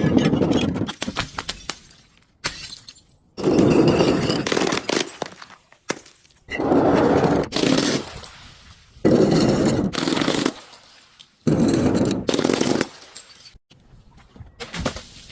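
Glass bottles breaking and crunching, five separate bursts of shattering about every two to three seconds, each a dense crackle lasting about a second.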